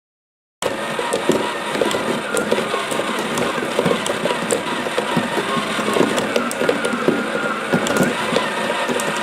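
Many glass marbles rolling and clattering along a cardboard marble run: a dense, steady rattle of small clicks that starts suddenly about half a second in.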